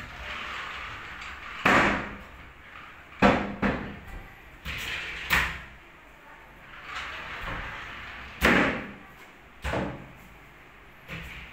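White laminated plywood wardrobe panels being slid by hand in their track. Each slide makes a rushing scrape and ends in a sharp knock as the panel hits its stop, about seven knocks in all.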